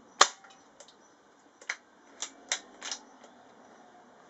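Air rifle firing a single shot, a sharp crack just after the start, followed by five or so lighter sharp clicks and clacks over the next two seconds.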